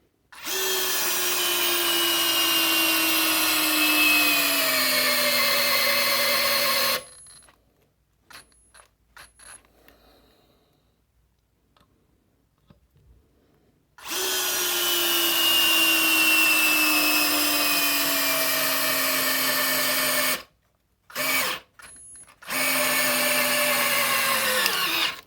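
Parkside Me PMBSA 4 A1 cordless drill with a brushless motor driving small chipboard screws. There are three long runs of motor whine, each sliding down in pitch as the load grows, plus a short burst before the last run. Faint handling clicks fall in the gaps.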